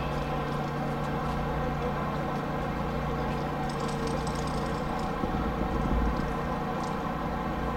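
Large ship's engines running at idle: a steady, even hum.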